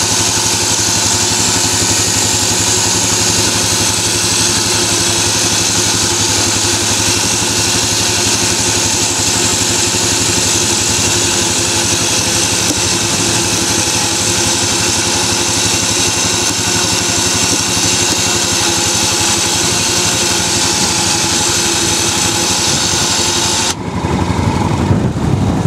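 ATV-mounted electric winch running steadily under power, spooling steel cable onto its drum, over the Yamaha Grizzly 700's idling engine. The winch cuts off suddenly near the end, leaving the engine idling.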